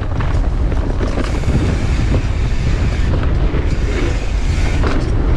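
Wind rushing over a helmet or chest camera's microphone and mountain bike tyres rumbling over a dirt trail during a descent, with small rattles and ticks.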